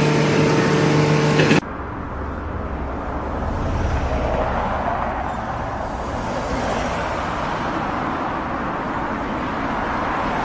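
A steady machine hum at one pitch, cut off sharply after about a second and a half by a steady low rumble and hiss of vehicle noise.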